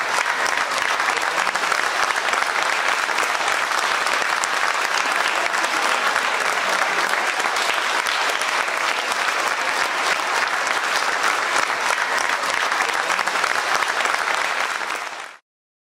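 Theatre audience applauding steadily, a dense patter of many hands clapping, which fades out quickly and stops near the end.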